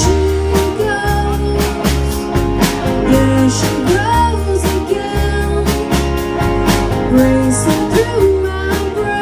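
Live band playing a country-blues rock song: electric guitar, bass and a steady drum beat, with a voice singing over it.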